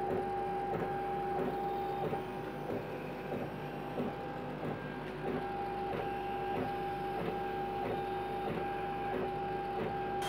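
CO2 laser cutter raster-engraving acrylic: the gantry's stepper motors whine steadily as the head sweeps back and forth, the tone breaking with a small tick about twice a second as it reverses. Under it is the steady hiss of the air assist blowing through the nozzle.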